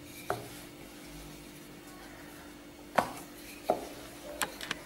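Wooden rolling pin rolling out semolina dough on a wooden board over a faint steady hum. It gives a few sharp knocks, the loudest about three seconds in, and a quick run of light clicks near the end.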